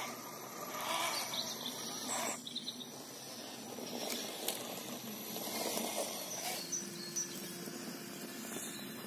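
Outdoor ambience: insects humming steadily with a few short bird chirps, and a brief rustling scrape in the first two seconds.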